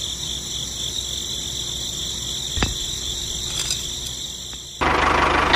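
Crickets chirping steadily in a high, pulsing trill, with a single sharp click about halfway through. Near the end the sound cuts abruptly to a louder, engine-like running sound.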